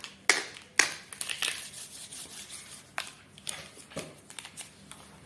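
Plastic felt-tip sketch pens clicking and rubbing against one another as a handful of them is shuffled in the hands, with sharp taps at irregular moments.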